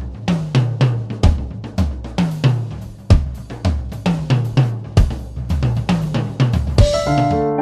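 Intro music: a drum kit beat of evenly spaced hits, ending in a cymbal crash near the end as keyboard chords come in.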